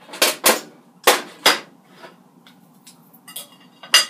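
A knife and plate clinking and knocking while a steak is handled on the plate: four sharp clinks in the first second and a half, then a few lighter ones and two more near the end.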